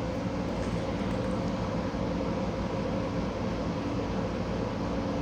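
Steady background mechanical hum: an even hiss with a low drone of a few held pitches, unchanging throughout.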